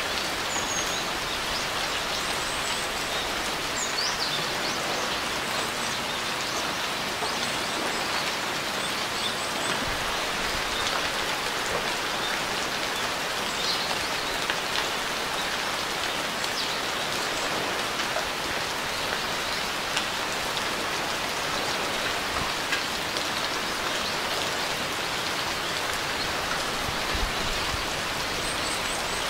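Steady rain falling, an even hiss with scattered louder drops. Faint high bird chirps come through now and then, mostly in the first third and again near the end.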